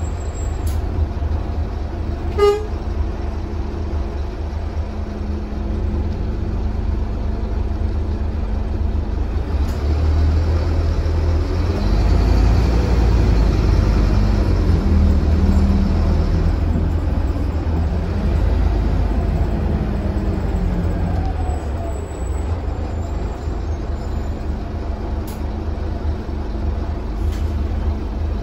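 Scania K320UB city bus heard from inside the cabin while moving: the rear diesel engine and road noise give a steady low drone that grows louder for several seconds around the middle. A single short ding sounds about two and a half seconds in.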